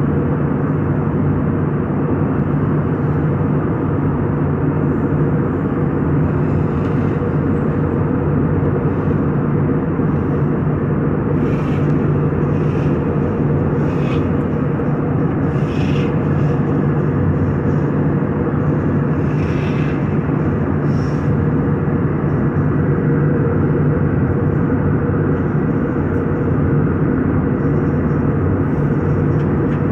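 Steady engine and airflow drone heard from inside a moving vehicle's cabin, with a few faint ticks midway.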